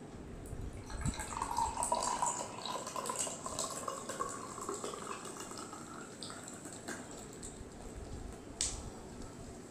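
7UP soda pouring from a plastic bottle into a glass. The pitch of the stream rises as the glass fills, with fizzing from the bubbles. A sharp click comes near the end.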